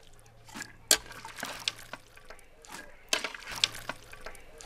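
A metal spoon scooping boiled palm nuts out of a cooking pot and dropping them into a wooden mortar: scattered wet clicks and knocks with dripping cooking liquid.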